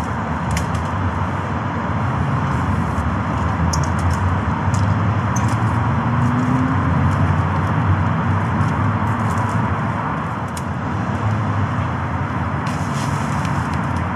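Steady noise of heavy motorway and roundabout traffic, with a few light clicks and rustles as tent poles and fabric are handled.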